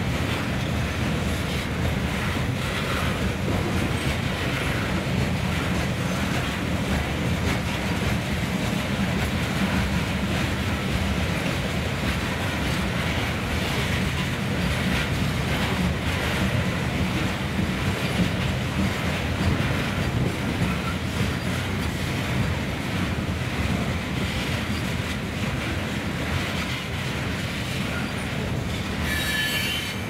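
Loaded coal cars of a freight train rolling past: a steady rumble of steel wheels on the rails. Near the end comes a brief, high-pitched wheel squeal.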